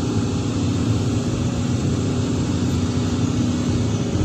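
Sany SY365H Pro excavator's diesel engine running steadily under hydraulic load while the full bucket is held and positioned over a dump truck bed.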